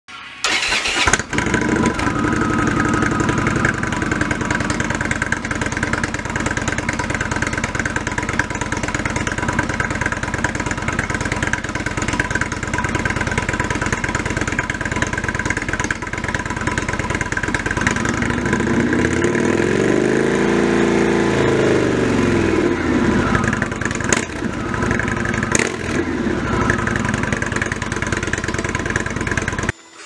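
2014 Indian Chief Vintage's Thunder Stroke 111 V-twin, through a Stage 1 Indian Performance slip-on exhaust on stock headers, starting up about a second in and then idling steadily. It is revved once in the second half, the pitch rising and falling back, before it settles to idle again.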